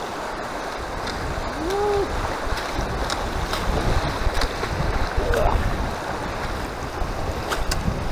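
Mountain creek water rushing and splashing, with wind buffeting the microphone as a low rumble and scattered sharp knocks and clicks.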